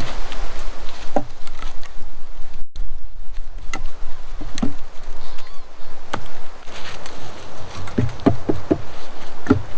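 Wooden poles knocking and clattering as they are laid and shifted on a cord-lashed pole frame, with a quick run of several knocks near the end, over a steady low rumble.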